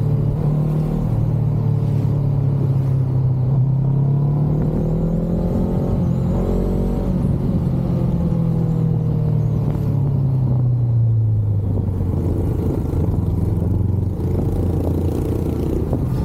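Honda CBR500R's parallel-twin engine running through an Akrapovic exhaust, the note steady, rising a little, then dropping to a lower pitch about two-thirds of the way through.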